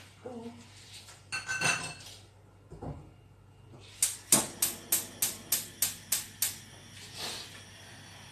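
Metal cookware clatters briefly with a ringing tone about a second and a half in; then a stove burner's igniter clicks about nine times in an even run, roughly three a second, as the burner is lit.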